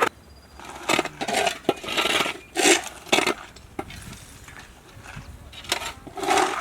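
Metal shovels and hoes scraping and striking the concrete bed of an irrigation ditch as it is cleared, in irregular strokes with a lull a little past halfway.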